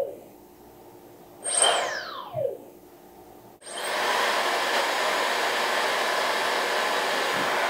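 Counterfeit Dyson Supersonic hair dryer faltering as it is switched on: a short high whine falls away about a second and a half in, then from about three and a half seconds in the motor runs steadily with a loud rush of air. The dryer had been broken and is only just coming back to life.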